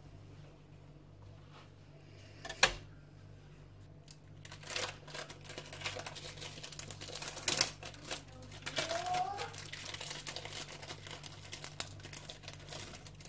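Thin plastic crinkling and rustling as it is handled, in irregular crackles, with a sharp click about two and a half seconds in and a louder one about halfway through.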